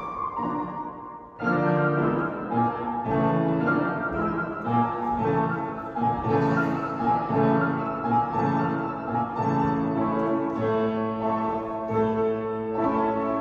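Classical piano music, a new, louder passage starting about a second and a half in.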